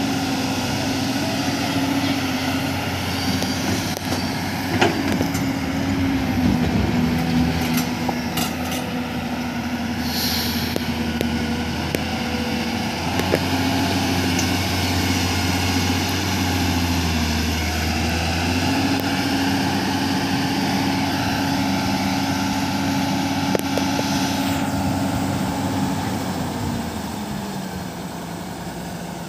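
Heavy diesel engines of earth-moving machinery, an excavator and dump truck, running under work, the engine note rising and falling, with a few knocks and a short hiss about ten seconds in. Near the end the engine note drops and gets quieter.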